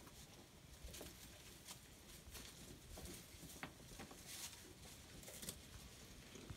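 Faint, irregular rustling and crackling of goats pulling at and chewing fodder stalks, a few soft ticks a second.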